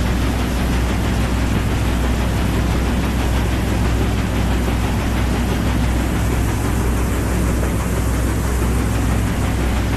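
Valley Gem sternwheeler's engines running steadily under way, a constant low drone with a wash of noise over it.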